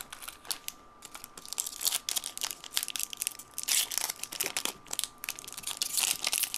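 Plastic wrapping crinkling and tearing as a sealed 1998 Topps Stars football hobby box is opened: a quick run of crackling rustles starting about a second in.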